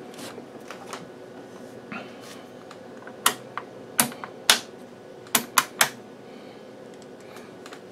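Sharp clicks from the detented rotary amplitude-range switch of an HP 8405A vector voltmeter being turned step by step, several clicks starting about three seconds in, over a faint steady hum.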